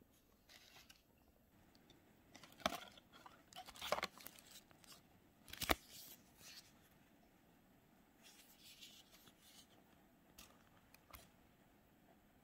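Faint rustling and scraping of a small cardboard cosmetics box being turned over and opened by hand, with a few sharper scrapes and clicks, the loudest about three, four and six seconds in.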